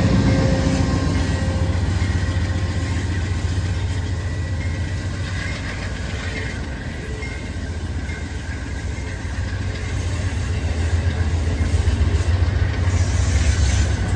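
GE P42DC diesel locomotive pulling out with its engine running as a steady low rumble, loudest at first and easing as it moves off. Amfleet passenger cars then roll past on the rails, the noise building again near the end.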